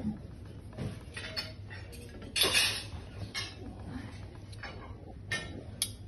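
Knife and fork clinking and scraping against plates and the metal ham stand as slices of cured ham are carved and served: scattered sharp clicks, with one louder clatter about two and a half seconds in.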